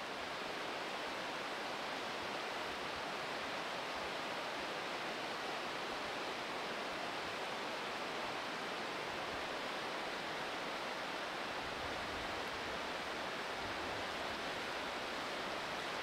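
Rushing water of the Oulanka River's rapids, a steady even hiss with no change in level.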